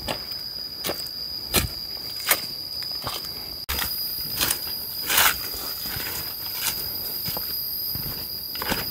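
A steady, high-pitched insect drone fills the forest, with irregular crunching footsteps on dry leaves and twigs about once a second.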